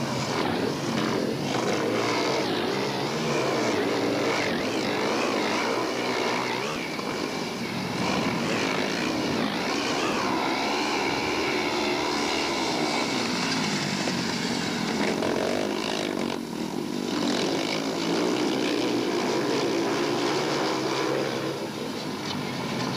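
Several single-cylinder speedway motorcycles racing, their engines running hard in a continuous buzzing drone that rises and falls in pitch as the riders open and close the throttle through the bends.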